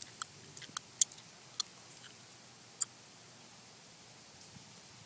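Raindrops striking the phone and its microphone: irregular sharp ticks, about eight in the first three seconds with the loudest about a second in, over a faint steady hiss.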